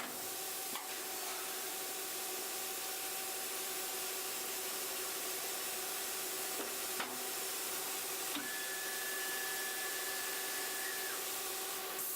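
CNC cutting machine running with its drilling and tapping head: a steady hiss over a low machine hum, with a few faint clicks. A higher steady whine sets in a little past the middle and stops about three seconds later.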